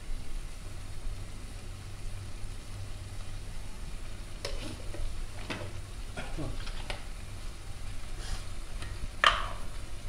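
Taro pieces sizzling as they fry in oil in a steel kadai, with a steel spoon knocking and scraping against the pan several times in the second half. The loudest knock comes near the end.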